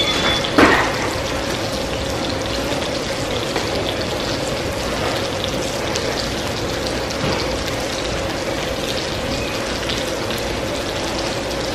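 Steady crackling hiss of food cooking on the stove, with a faint steady hum underneath. About half a second in, a metal utensil clanks sharply against the steel pot as spaghetti is tossed in sauce.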